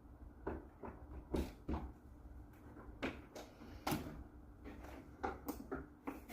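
A run of light, irregular plastic clicks and knocks from a portable 12-volt freezer's power cord and adapter being plugged in and handled, over a faint steady hum.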